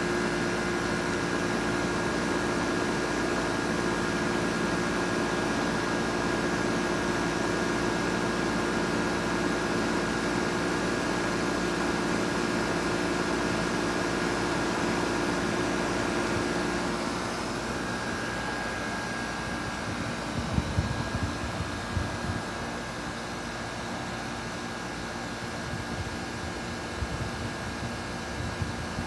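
Carrier Comfort Series heat pump outdoor unit running through a defrost cycle, a steady mechanical hum with a held tone. About seventeen seconds in the hum drops a little and its tone shifts. Irregular low rumbles come in later.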